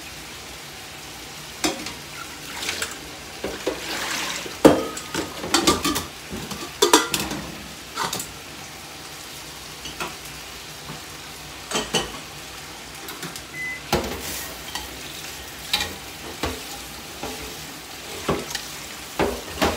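Stainless-steel cookware and utensils clink and clatter again and again: a colander insert, a pot and the metal sink. Under them runs a steady sizzle of pork steak frying in a pan.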